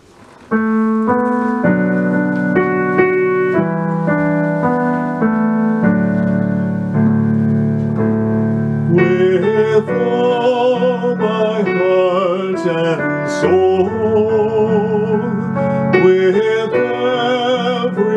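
Piano playing a slow chordal introduction to a worship song. About halfway through, a singing voice with vibrato joins over the piano.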